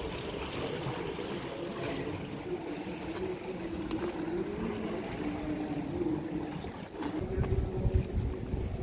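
A motor hums steadily, its pitch wavering slightly. From about seven seconds in, wind buffets the microphone with a low rumble.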